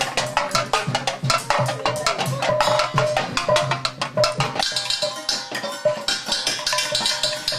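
Percussion playing: fast, dense strikes with a recurring low drum thump underneath.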